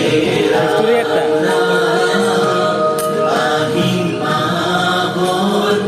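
Music with a group of voices chanting and singing over sustained instrumental notes.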